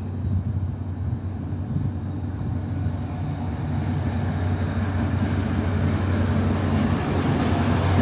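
Utah FrontRunner commuter train approaching on the far track: a steady low engine hum that grows louder as it nears.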